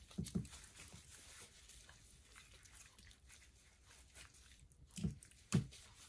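Nitrile-gloved hands rubbing seasoning salt into raw chicken leg quarters: faint wet squishing and glove rustling, with two sharper knocks about five seconds in.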